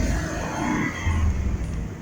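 Logging truck's engine running with a low, uneven rumble.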